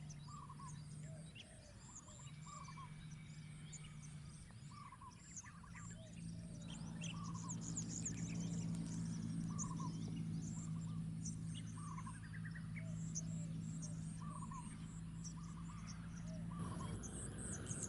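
Mixed wetland birds calling, with many short chirps repeated every second or so and quick high whistles over them. A low steady hum runs underneath, growing a little louder about six seconds in.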